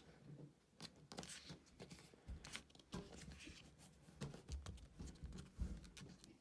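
Faint rustles and crinkles of a sheet of paper being folded and creased by hand, in scattered short bursts.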